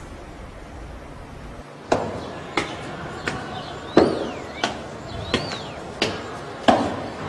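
Footsteps climbing concrete stairs: hard shoe strikes about every 0.7 seconds, starting about two seconds in, with two short squeaks in the middle.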